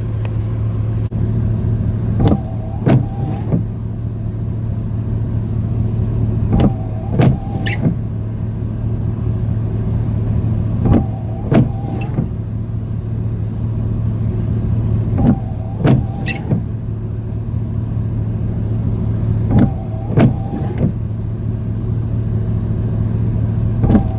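A car engine idling with a steady low hum. About every four and a half seconds a small electric motor cycles, giving a short whine framed by a few clicks.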